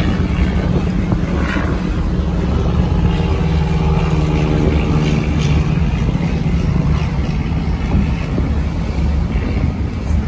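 A fishing boat's engine drones steadily under way, with wind buffeting the microphone. For a few seconds in the middle a second, higher engine tone rises over the drone and then fades.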